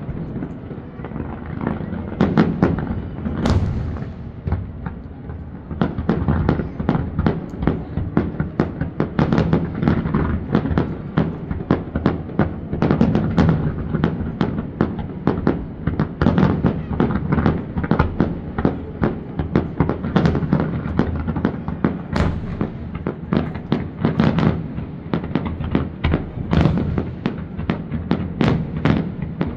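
Aerial fireworks bursting in rapid, overlapping bangs, with a short lull a few seconds in and then a dense, continuous barrage of shells.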